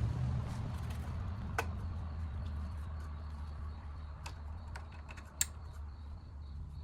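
Scattered light clicks and taps of small plastic parts being handled, such as retainer clips and wiring connectors being fitted. The sharpest click comes about five and a half seconds in, over a low steady rumble.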